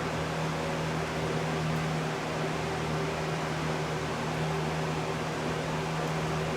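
Steady low hum with an even rush of air from a running fan.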